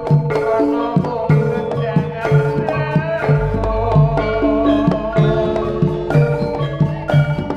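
Javanese jaranan gamelan music: tuned metallophones play steady pitched notes over a regular beat of kendang hand drums. A deep low tone sets in about halfway through and hangs on.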